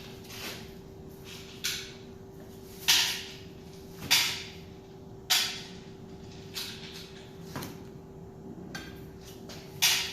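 Stand fan parts being handled during assembly: a series of sharp knocks and clacks, about one every second or so, over a faint steady hum.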